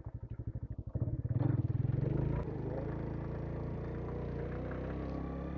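Motorcycle engine heard from the rider's seat while riding. It starts as low, even firing pulses, gets louder about a second in, and then settles into a steady run. There is one sharp click near the middle.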